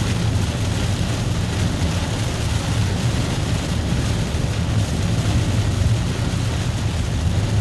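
Car driving in heavy rain: a steady low rumble with the hiss of rain and spray from the wet road.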